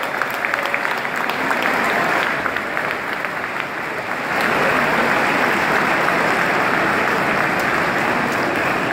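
Large arena crowd applauding, the clapping swelling louder about four seconds in.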